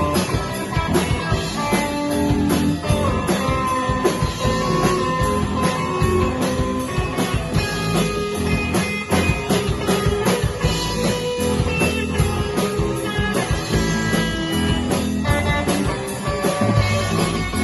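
Rock music with no vocals: held guitar notes over a steady drum kit beat.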